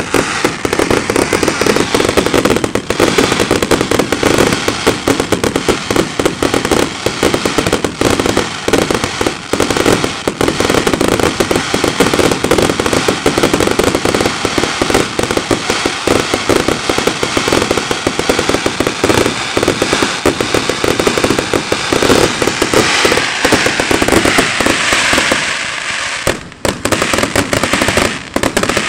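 Fireworks display: a dense, unbroken barrage of bangs and crackling from ground fountains and aerial bursts. A hissing rush swells for a few seconds near the end.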